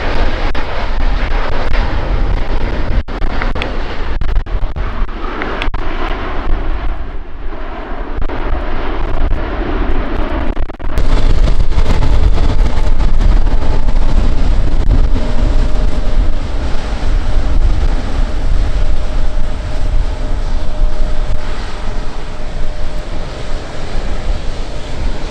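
Airbus A350's Rolls-Royce Trent XWB jet engines running as the airliner rolls along the runway during a rejected take-off. About 11 seconds in, the sound jumps abruptly to a louder, steady rumble.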